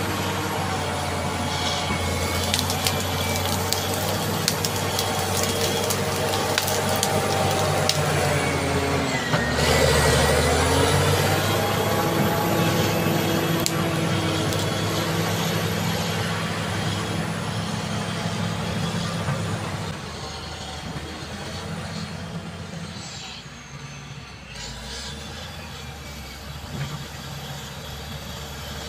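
Caterpillar D7G bulldozer's diesel engine working under load. Its pitch dips and recovers about ten seconds in as it lugs. Sharp clicks and knocks come in the first several seconds, and the engine gets quieter after about twenty seconds.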